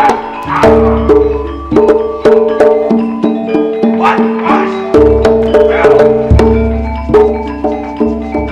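Javanese gamelan playing: metallophones ring a running pattern of held notes over sharp percussive strikes several times a second, with a few deep low strokes.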